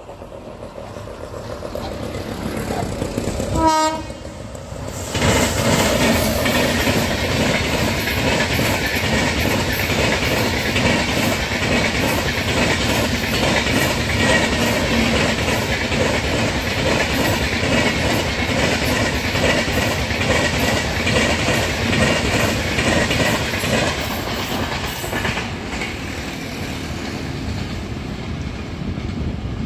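Approaching electric express train, its WAP-7 locomotive sounding one short horn blast about four seconds in. The train then runs past at speed, with a loud, steady rush and a rhythmic clickety-clack of coach wheels over the rail joints, easing slightly as it draws away near the end.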